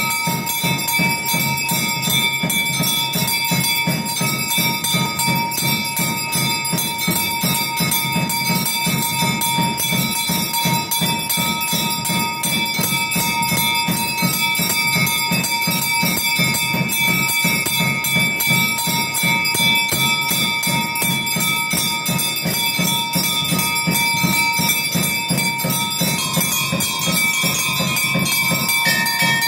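Temple bells ringing rapidly and continuously for the aarti, with fast, even strokes and a steady low beating beneath. The ringing tones change about 26 seconds in.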